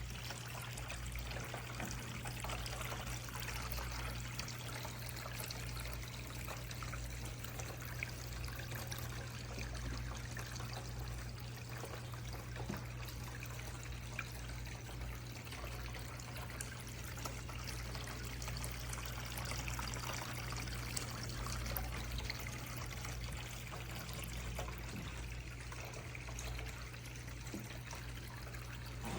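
Cascading water fountain running: water trickling and pouring steadily from tier to tier, with a steady low hum underneath.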